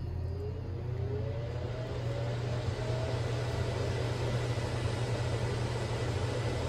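Kitchen range-hood extractor fan switched on and running up to speed: a steady rush of air, with a motor tone rising in pitch over the first few seconds, over a steady low hum.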